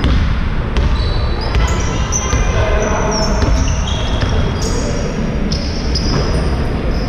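Basketball bouncing on a hard indoor court as a player dribbles, with sneakers squeaking in many short high chirps as players move and cut on the floor.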